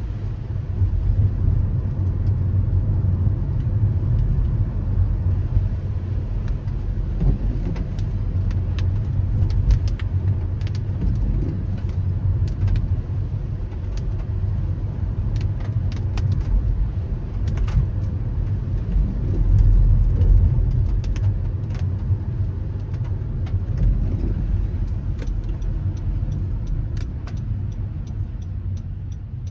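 Car driving in the rain: a steady low rumble of engine and tyres on the wet road, swelling briefly about two-thirds through, with scattered sharp ticks.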